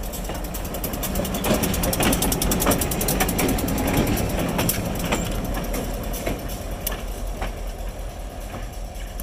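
Diesel-electric locomotive of the Housatonic Railroad running light past at low speed: a steady engine drone with sharp metallic clicks from the wheels over the rail joints. It is loudest as the locomotive passes, two to five seconds in, then fades as it moves away.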